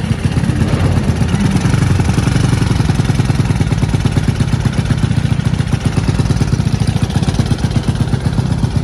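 Motorcycle engine running steadily with a fast, even beat, just started off a portable jump starter clamped to its battery.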